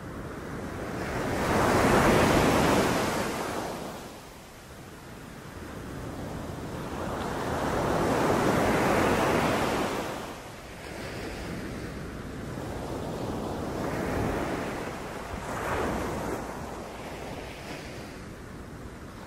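Sea waves breaking on a beach and washing back: a loud surge about two seconds in, another around the middle, then smaller breaks toward the end.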